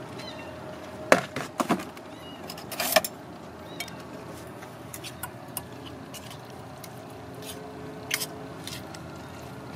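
A few sharp clinks and knocks of a ceramic plate and serving utensils being handled: a cluster about a second in, another around three seconds, and one more near the end, over steady street background noise.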